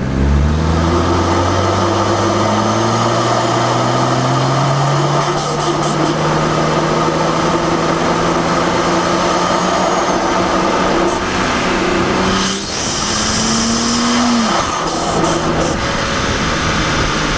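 BMW N54 twin-turbo inline-six heard from inside the engine bay, its intake rushing. The engine's pitch climbs steadily over the first few seconds as it pulls, then holds steady. About twelve seconds in, a brief dip is followed by a high hissing rush and a short rising whine.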